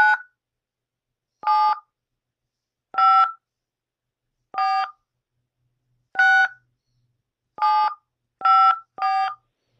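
Touch-tone (DTMF) keypad tones from a Skype dial pad, keying a surname into an automated phone directory. There are eight short two-pitch beeps, about one and a half seconds apart at first, with the last three coming quicker.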